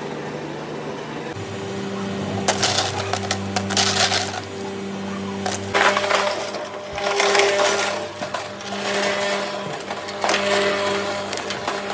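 Commercial cube ice machine running with a steady hum, while loose ice cubes clatter and crack against one another in several bursts, each lasting about a second or longer.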